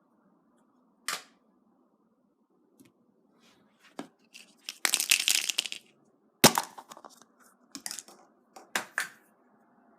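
A surprise egg being opened by hand: sharp clicks and snaps, with a crinkling tear lasting about a second near the middle and the loudest snap just after it.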